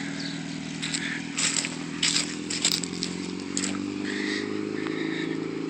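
Motorcycle engine running steadily, its pitch rising slightly in the second half, with a few short scraping clicks over it.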